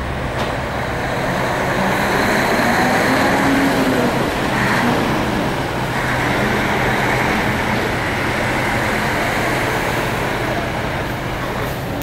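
Heavy vehicle engines running with a steady low diesel hum under general traffic noise, a little louder a few seconds in.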